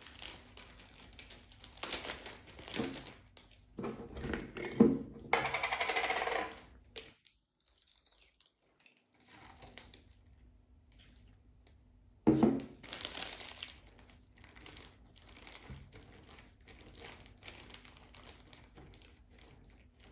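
Plastic zip-lock bag crinkling and rustling in bursts as gloved hands open it, pour into it and squeeze it shut, with small knocks from a glass bottle and its cap. The sounds stop briefly about halfway through.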